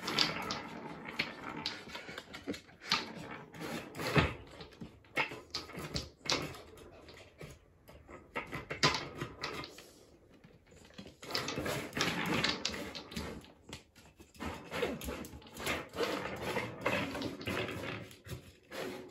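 A Papillon–Corgi mix dog playing hard: irregular clicks, knocks and rustling as it noses under a floor mat and then paws and noses a wooden tiered cat toy, rattling the balls in its tracks, with the dog's own small vocal sounds mixed in.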